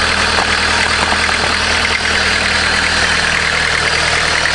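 Volkswagen diesel engine, freshly swapped into a minivan, idling steadily with the hood open.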